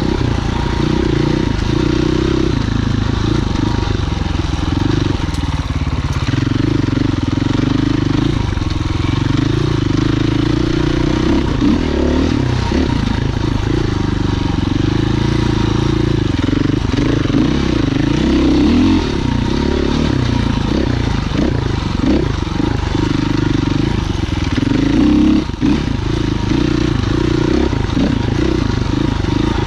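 Husqvarna FE 501 enduro motorcycle's single-cylinder four-stroke engine running while riding, its revs rising and falling with throttle and gear changes.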